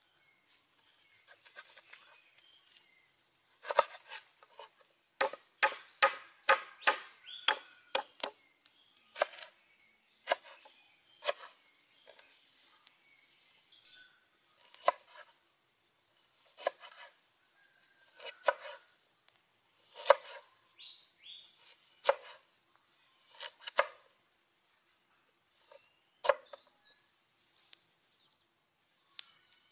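Large knife chopping lemongrass stalks and a pale root on a wooden cutting board: a quick run of about a dozen chops, then slower single cuts every second or two.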